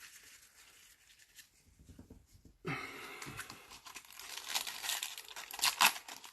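Trading card pack wrapping being torn open and crinkled. It starts suddenly a little under halfway in, and the sharp crackles grow louder near the end.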